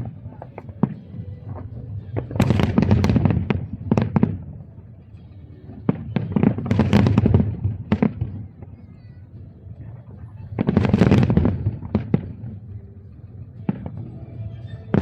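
Aerial fireworks bursting in volleys: three loud clusters of booms and bangs about four seconds apart, with quieter crackling and pops between them.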